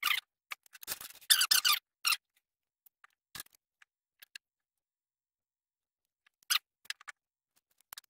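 Adhesive tape pulled off its roll in a few short strips, in the first two seconds, for wrapping round a drill bit as a depth stop. After that there are only a few light knocks of small pieces handled on the wooden bench.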